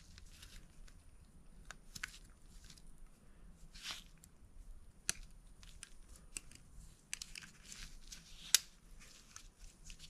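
Gloved hands handling a BMW N54 vacuum pump against an engine block while lining up its drive tabs: faint rustling of nitrile gloves with scattered small metal clicks, and one sharper click near the end.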